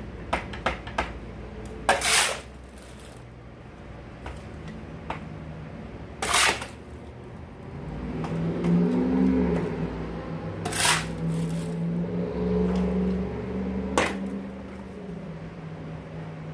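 A metal shovel scraping and scooping wet muck off a concrete floor, in several separate loud scrapes a few seconds apart. A steady low drone comes in about eight seconds in and lasts until near the end.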